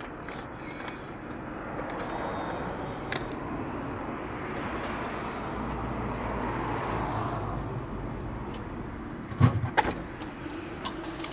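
A car passing by, its tyre and engine noise swelling over several seconds and then fading. A couple of sharp knocks come near the end.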